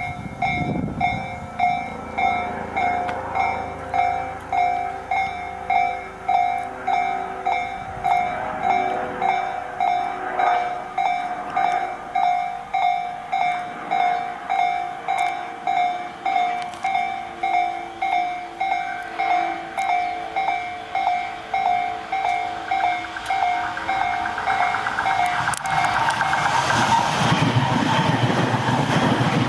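Railway level crossing warning alarm ringing its two-tone electronic bell at about three strokes every two seconds, cutting off about 26 seconds in. A louder steady rumble of passing vehicles follows near the end.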